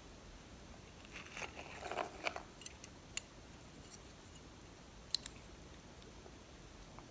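Faint clicks and short scrapes of small metal lock parts being handled as a plug follower is worked into a lock cylinder, with a cluster of sounds around a second or two in and a few sharp separate ticks after.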